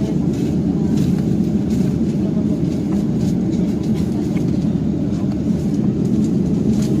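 Steady low roar of an airliner cabin: jet engine and airflow noise heard from inside the passenger plane, even and unchanging.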